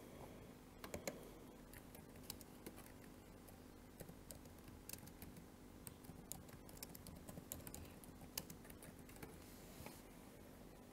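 Faint typing on a computer keyboard: quick, irregular keystroke clicks, with a few louder clicks about a second in.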